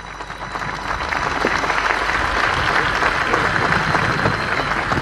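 Large seated audience applauding, swelling over the first second or so and then holding steady.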